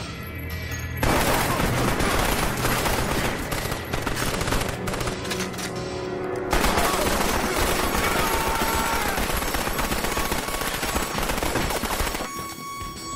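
Film shootout gunfire: a long fusillade of rapid, automatic-sounding shots that starts about a second in, breaks off briefly around the middle, then resumes and dies away near the end.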